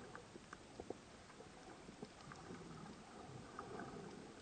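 Faint underwater ambience in shallow sea water: a low wash of water movement with scattered small clicks and ticks, one sharper click about a second in.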